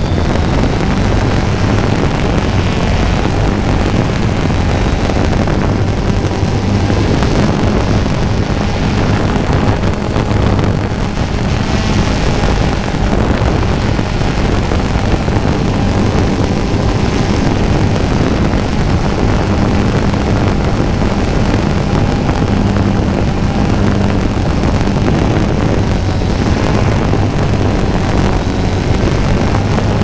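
Quadcopter drone's motors and propellers humming steadily in flight, with wind noise on the onboard camera's microphone.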